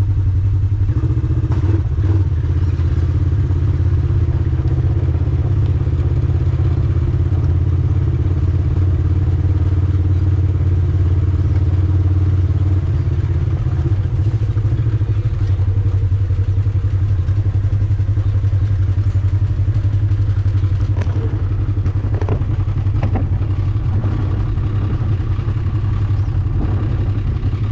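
ATV engine running steadily under way, a loud low drone, with a few brief knocks and rattles.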